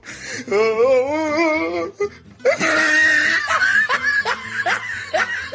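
Overdubbed comedy soundtrack: a warbling, wobbling musical tone for about two seconds, then, after a brief dip, a stretch of laughter over music.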